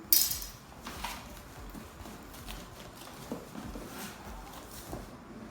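A cardboard box being cut open along its side: a sharp cutting or tearing scrape right at the start, a smaller one about a second in, then quieter rustling and light knocks of handling the cardboard.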